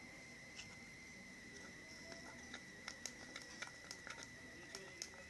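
Slime being handled: faint, irregular small sticky clicks and pops, more frequent from about halfway through, over a steady faint high-pitched whine.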